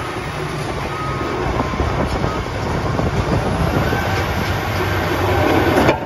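Caterpillar D11 bulldozer running under load, its diesel engine droning beneath the clatter of its steel tracks as it pushes material with the blade. The noise grows louder near the end.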